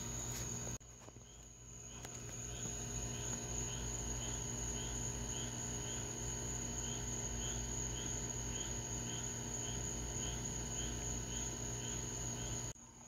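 Crickets chirping in a regular rhythm, about three chirps a second, over a steady high insect trill and a steady low hum.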